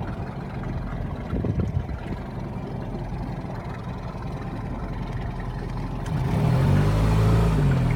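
Motorboat engine running, getting louder about six seconds in, when a steady humming tone comes in over the low rumble.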